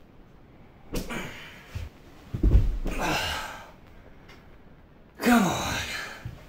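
A man's straining vocal sound as he hauls a heavy bag up carpeted stairs, then a heavy thump as he and the bags drop onto the steps. About five seconds in comes one long, loud groaning sigh that falls in pitch.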